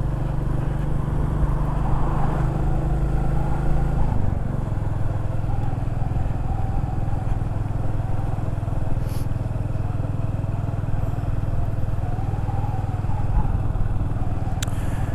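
Motorcycle engine running with road and wind noise, heard through a microphone inside the rider's helmet with the visor open. The engine note drops about four seconds in, then holds steady.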